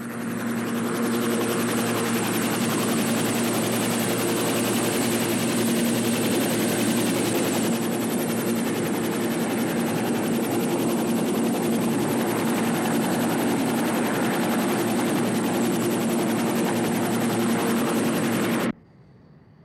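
Large helicopter hovering low, its rotor and engines running loud and steady with a fast even beat; the sound cuts off abruptly near the end.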